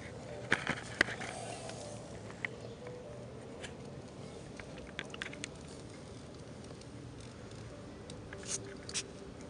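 Handling noise: scattered light clicks and taps over a faint steady hum, a few close together at the start and two louder ones near the end.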